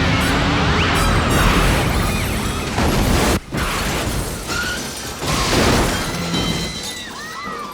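Action-film soundtrack of a car crash sequence: loud crashing and smashing impacts with breaking glass, mixed with score music, dropping out sharply for an instant about three and a half seconds in.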